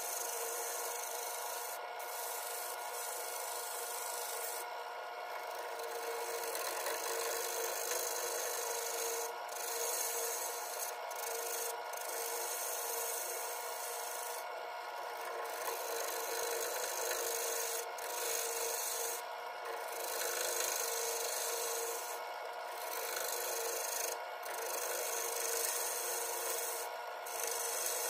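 A gouge cutting a spinning black cherry bowl blank on a wood lathe: a steady scraping hiss of shavings peeling off, easing off briefly many times as the cut lifts, over the steady hum of the running lathe.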